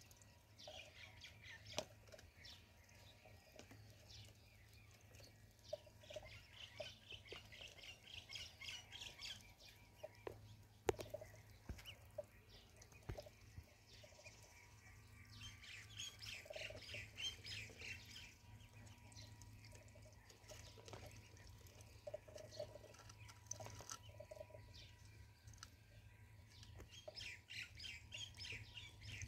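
Ducklings peeping faintly in several bouts of quick, high repeated calls, with a few sharp ticks in between.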